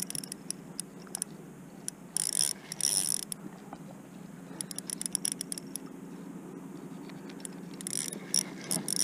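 Spinning fishing reel being cranked by hand, its gears ticking in several spells of fast clicks with pauses between.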